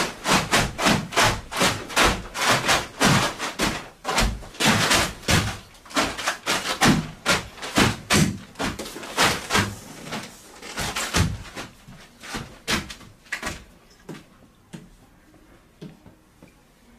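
Rapid knocks and thuds on a plastic tarp laid over a hard floor, about four a second, becoming sparser after about ten seconds and dying away about three-quarters of the way through.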